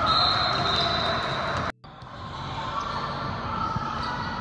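Basketball game sound: a ball bouncing on the court amid background voices, with a high steady tone over the first second and a half. The sound cuts out abruptly for an instant about two seconds in, then carries on a little quieter.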